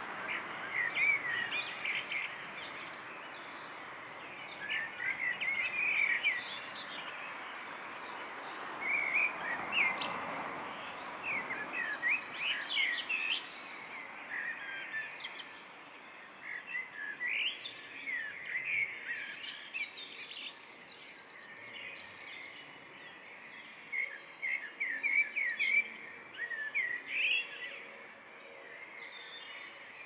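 Songbirds singing at dawn: short chirping phrases come again and again, sometimes overlapping. Under them runs a steady rushing noise, strongest in the first half and fading away by the middle.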